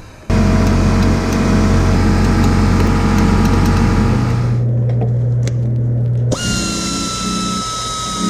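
A power tool running steadily for about four seconds, its pitch shifting slightly before it stops abruptly. After a short pause with a few clicks, another tool starts with a slowly falling whine and a choppy, stuttering undertone.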